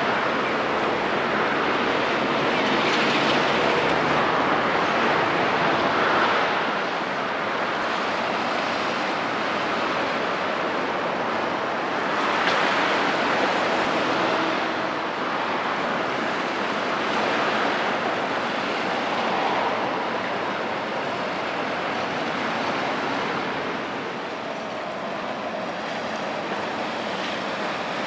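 Sea water washing and surging against the shore, a steady rush that swells and eases every few seconds.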